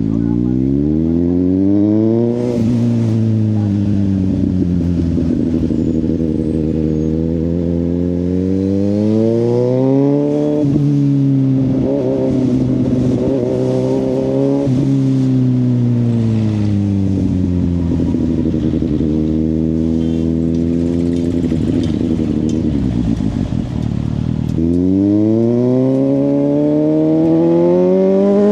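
Suzuki GSX-S750 inline-four through a Yoshimura exhaust, ridden on the road. It pulls up through the revs with sharp drops in pitch at gear changes, about two and a half and eleven seconds in. It then settles, eases off to a low steady note, and near the end revs hard and climbs steeply under acceleration.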